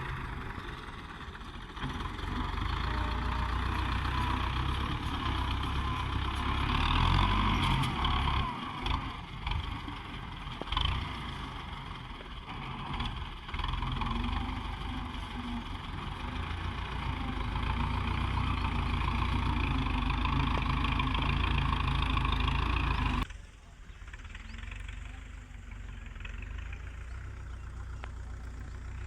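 Tractor engine running steadily, rising and falling a little in level, then abruptly quieter and duller about three-quarters of the way in.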